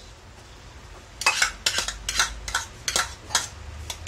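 A metal ladle and a wooden spatula stirring noodles and carrot strips in a large metal cooking pot. Short scrapes and clinks of the utensils against the pot come in a quick irregular run, starting about a second in.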